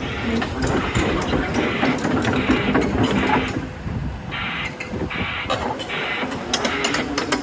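Komatsu PC210LC-11 crawler excavator running, with a steady machine noise and repeated clanking and knocking, and an intermittent high beeping in short pulses.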